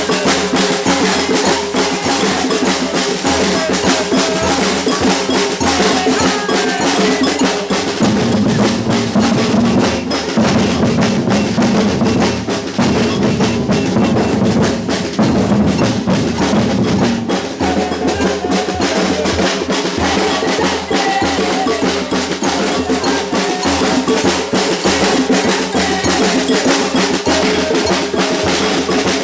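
Batucada samba percussion group playing together: bass drums, snare drums and a bell-like cowbell part in a dense, steady rhythm. The low drums come up stronger for several seconds in the middle.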